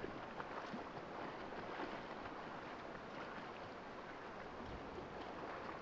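Steady wash of sea water at low level, with many faint crackling ticks through it.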